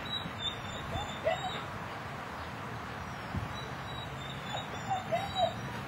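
Young Malinois/Dutch shepherd mix puppy giving short, high whimpers while hanging on and tugging at a burlap tug toy. There is a pair of whimpers about a second in and a few more near the end.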